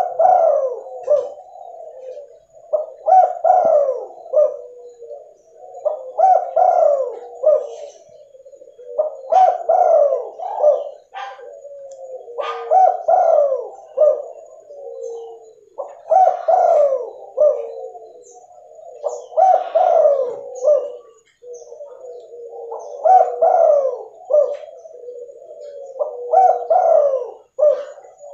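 Spotted dove (tekukur) cooing over and over, a phrase of several coos about every three seconds, about nine phrases in all.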